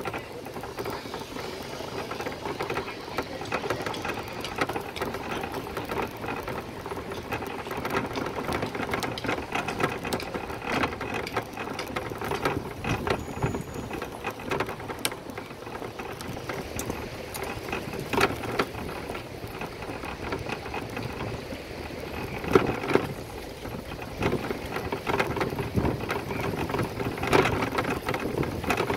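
A bicycle being ridden: steady rattling and fast clicking from the chain and frame over continuous tyre and road noise, with a few louder jolts.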